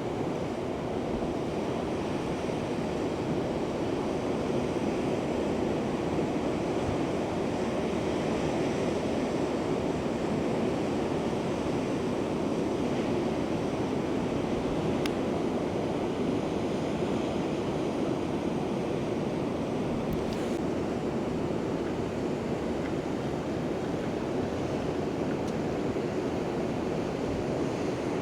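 Steady rushing of ocean surf, with wind buffeting the microphone.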